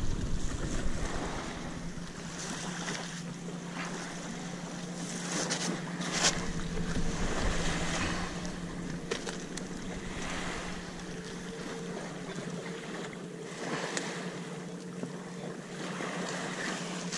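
Wind buffeting the microphone in a steady rushing noise, with a few short knocks and rustles as the carp is handled on the concrete.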